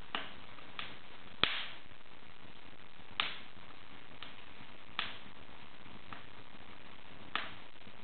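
Wood fire in an open fireplace crackling: a steady low hiss with about half a dozen sharp pops at irregular intervals, the loudest about a second and a half in.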